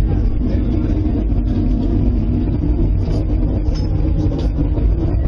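Strong storm wind, a loud, steady low rumble buffeting the microphone, which those sheltering take for an approaching tornado.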